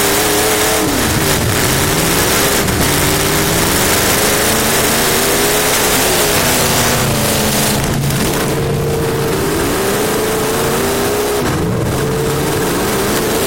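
Race car engine heard from inside the car, its pitch falling off and climbing back several times as the car lifts and accelerates again, under a constant loud rush of wind and road noise.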